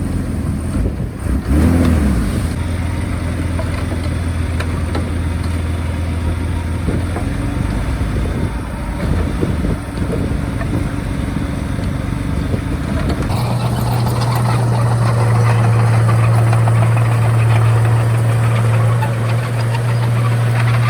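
Bulldozer's diesel engine running steadily, then about two-thirds of the way through it speeds up to a higher, louder pitch and holds there.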